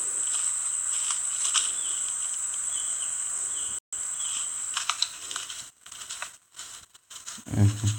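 A steady high-pitched whine like an insect's buzz over a faint hiss and light rustling, cut off briefly a few times and ending a little past halfway.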